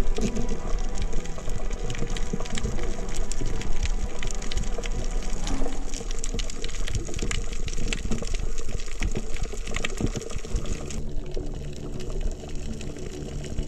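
Underwater sound heard through a camera's diving housing: a steady rush of water noise full of fast crackling clicks and knocks. About eleven seconds in the crackle thins and low steady tones come through.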